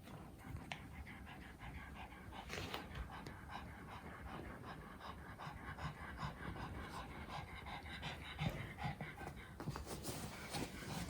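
A dog panting quickly and rhythmically.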